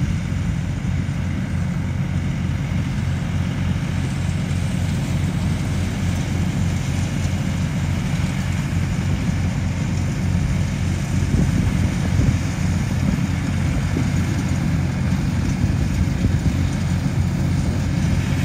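Diesel tractor running steadily under load, driving a straw reaper (tudi machine) that chops wheat stubble and blows the straw into a trailer. A low, even engine pulse sits under a steady rushing hiss from the machine.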